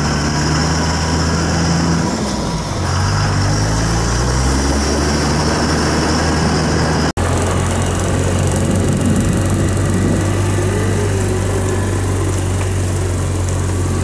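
A vehicle's engine running while driving, its pitch shifting up and down a couple of seconds in. After a sudden cut about halfway through, the engine of a side-by-side utility vehicle runs steadily, heard from inside its cab while riding.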